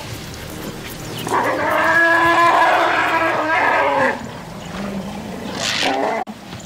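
African elephant trumpeting: one long call lasting nearly three seconds, then a shorter second call near the end. It is a threat call from elephants driving a wild dog away from their young.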